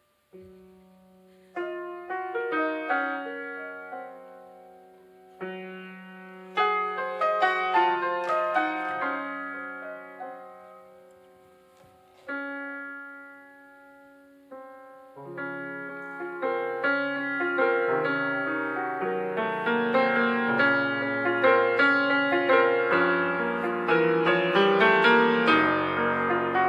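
Piano interlude: a few phrases of chords that strike and fade over held bass notes, then from about fifteen seconds in a busier, louder passage with a moving bass line.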